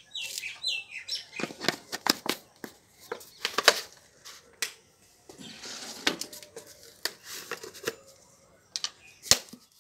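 A metal spoon and plastic jars being handled while fertilizer is measured out. A run of sharp clicks and knocks comes as horn shavings are scooped from a plastic jar. A rasping, rustling scrape starts about halfway through, and a single sharp click comes near the end.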